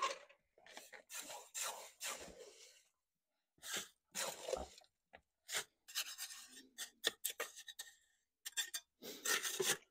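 Wet concrete being scooped and scraped out of a metal bucket and into a pot, a series of short, irregular scraping strokes.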